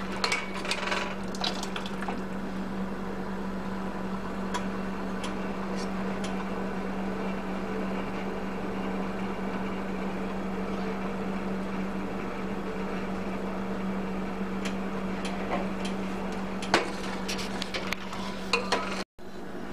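A spoon clinking and scraping against a steel saucepan while hot sugar syrup is stirred, in clusters near the start and again near the end. Under it runs a steady low hum with a soft hiss.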